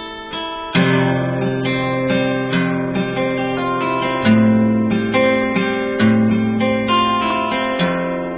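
Background music: held chords with a steady run of plucked notes, changing chord every second or so.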